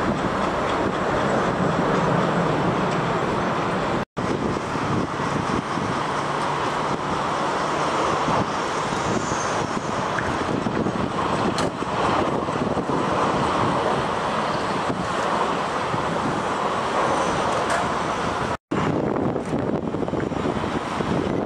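Jet airliners landing and on short final, their engines making a steady noise. The sound drops out suddenly and briefly twice, about four seconds in and near the end, where the shots change.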